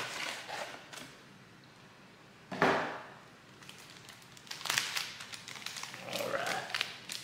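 Trading card box and packs being handled: scattered taps and rustles, with a loud, sharp rustle about two and a half seconds in and a run of crackling clicks around five seconds.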